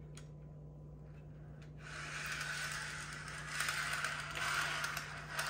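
Model train caboose wheels rolling along metal track as the car is pushed by hand, starting about two seconds in and swelling and easing. It is being run over the freshly joined track sections to check for smooth running.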